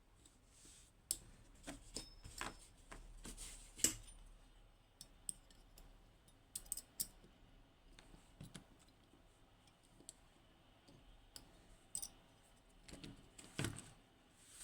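Faint, irregular small metal clicks and taps as a lock and small hand tools are handled, in clusters with short pauses between them.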